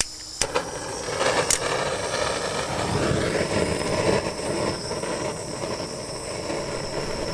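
Handheld gas blowtorch burning with a steady hiss as its flame heats a rusted nut to loosen it, with a few sharp clicks at the start.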